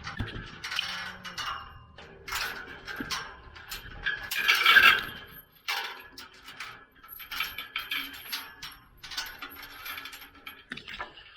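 Metal farm gate rattling and clanking in irregular bursts as it is handled, the loudest clatter about halfway through.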